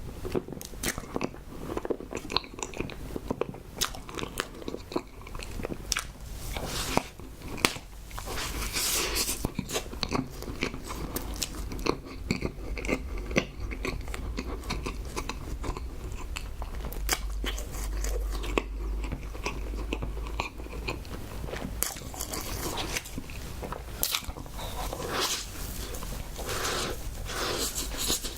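Close-miked eating: chewing and biting with many sharp, irregular wet mouth clicks, over a low steady hum.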